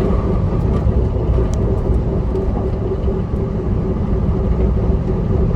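1998 Pontiac Trans Am under way: the V8 running with a steady rumble of road and tyre noise, and a steady whine held at one pitch underneath.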